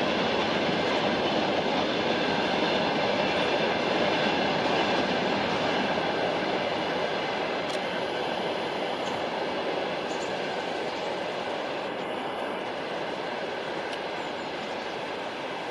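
Steady rumbling noise of passing vehicle traffic, slowly fading over the second half.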